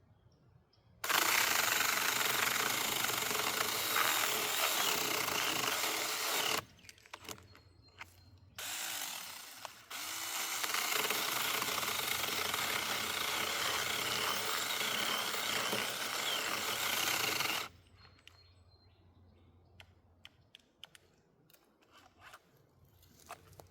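Cheap battery-powered mini chainsaw running and cutting in three runs: about five seconds, a brief burst, then about seven more seconds before it cuts off suddenly, which the owner takes for a dead battery.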